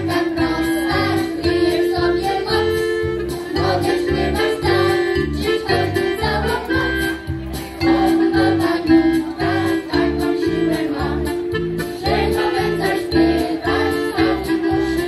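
Folk singing group, mostly women's voices, singing a song together in sustained notes over keyboard accompaniment with a steady bass beat of about two pulses a second.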